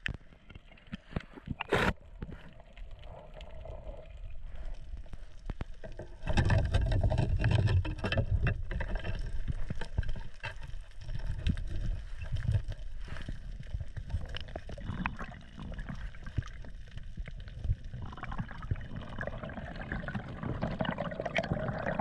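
Underwater sound heard through a swimmer's camera: water rushing and gurgling, broken by many short clicks and knocks. There is one sharp crack about two seconds in, and the noise grows louder from about six seconds in.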